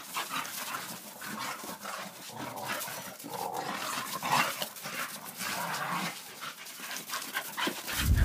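Two Staffordshire bull terriers play-fighting, making short, irregular rough play noises at each other. A loud low rumble comes in right at the end.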